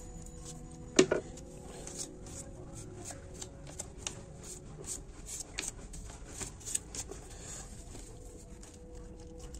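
Sheet of paper being handled and folded, rustling and crinkling in short crisp bursts, with one sharp knock about a second in.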